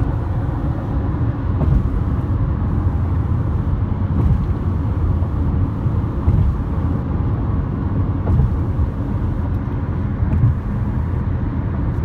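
Road noise of a car moving at highway speed, heard from inside the cabin: a steady low rumble.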